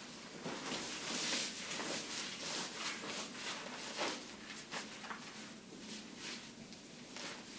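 Plastic pants rustling and crinkling as they are stepped into and pulled up over a diaper, a run of soft rubs and crinkles that is loudest in the first couple of seconds and dies down after.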